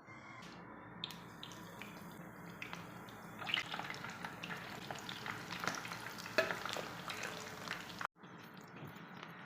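Food frying in hot oil, a steady sizzle with many small crackles and pops, which cuts off suddenly about eight seconds in.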